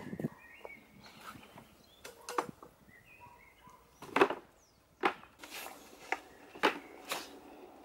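Wooden pallets being handled and set down on the ground, knocking against each other in a string of sharp wooden knocks, about eight over several seconds, the loudest about four seconds in.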